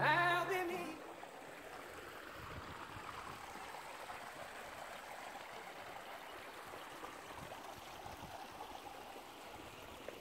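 The last notes of a song fade out in the first second, then a small stream trickles faintly over rocks, a steady even wash of water.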